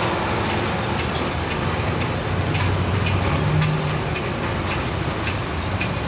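A hot farm pulling tractor's engine idles at the end of a pull, a steady low drone with some rattle.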